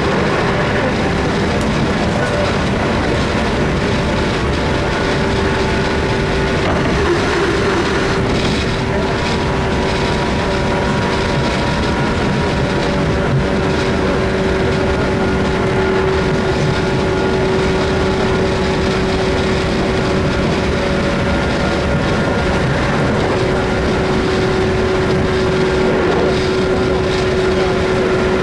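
JR 117 series electric train running at a steady speed, heard from on board: a steady whine from its MT54 traction motors and gearing over the continuous rumble of the wheels on the rails.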